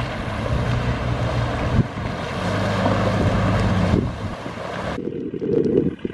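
4WD engine running as the vehicle drives slowly through a shallow river crossing, over the rush of the flowing river water. About five seconds in the sound changes to a low wind rumble on the microphone.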